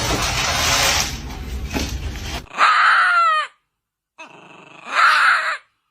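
A dog giving two loud cries, the first sliding down in pitch, after a couple of seconds of rough noise.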